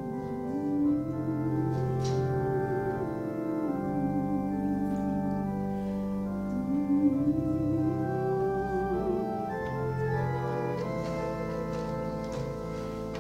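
Church organ playing slow, held chords, with a melody line that wavers in pitch on top.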